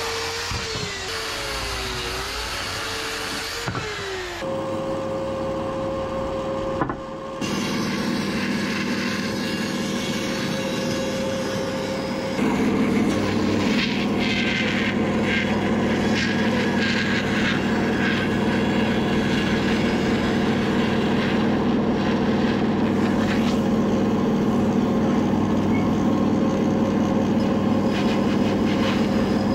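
Electric chainsaw cutting a wooden beam, its motor whine dipping and rising in pitch under load for the first few seconds. From about twelve seconds in, a bandsaw runs steadily, cutting through a thick block of wood.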